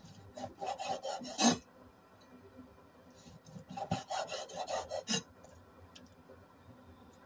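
Cleaver slicing raw chicken meat on a wooden chopping board. There are two runs of quick rasping strokes as the blade cuts and scrapes against the board, each ending in a sharper knock, with a short pause between them.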